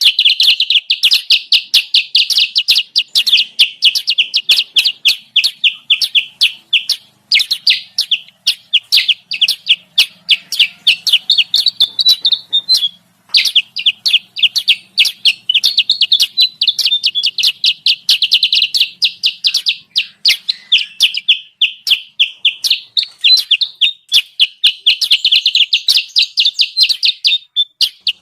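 Kutilang sutra bird-lure recording: a loud, rapid chatter of short high chirps, many a second, broken by brief pauses. These are the excited 'ribut' calls meant to draw wild kutilang sutra down to the trap.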